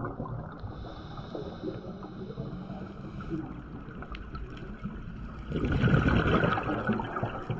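Muffled underwater rushing heard through a camera housing during a scuba dive, with the bubbling of divers' exhaled air; it swells louder about five and a half seconds in.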